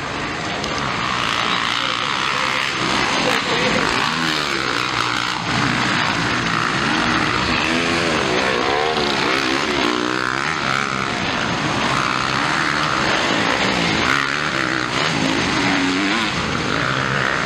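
Motocross bike engines racing on track, revving up and down, with the pitch rising and falling repeatedly as riders work the throttle through corners and past the camera.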